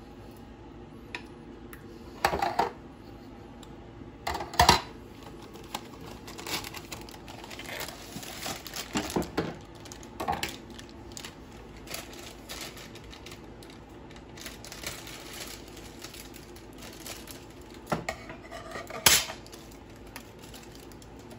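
A spoon scraping and clinking against an emptied tin can and a glass baking dish as cherry pie filling is scraped out and spread. Several sharp knocks stand out over quieter scraping, the loudest about five seconds in and near the end.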